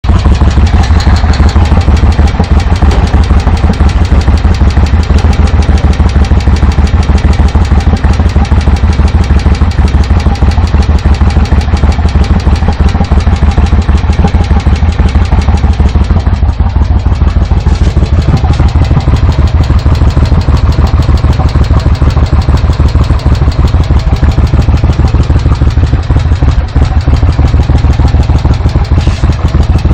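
Engine running steadily with a rapid, regular knocking: a knock in the engine.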